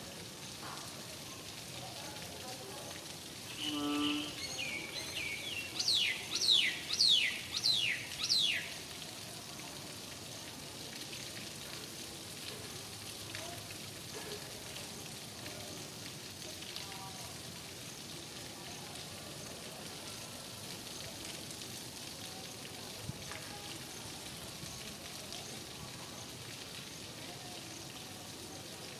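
Steady rain falling, an even hiss. About four seconds in, a bird calls a run of about six quick, high notes, each falling in pitch.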